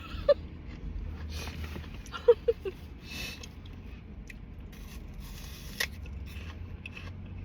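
Eating noises: crunchy bites and chewing in several short crackling bursts, with a sharp click near the middle and a few brief hummed vocal sounds. A steady low hum runs underneath.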